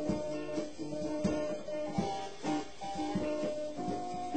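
Live band jam: electric guitar, keyboard and drum kit playing a mid-tempo rock groove, with sustained notes over a steady drum beat.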